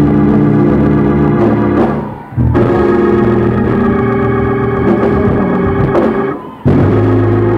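Organ playing loud sustained chords. The chords cut off briefly twice, about two seconds in and near the end, and each time a new chord comes straight in.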